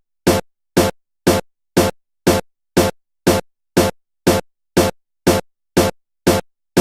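Background electronic music with a steady drum-machine beat: short hits about twice a second with silence between them.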